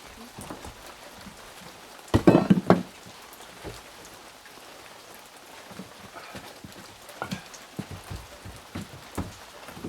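Steady rain falling, with a short burst of loud knocks and clatter about two seconds in and scattered sharp clicks and drips later on.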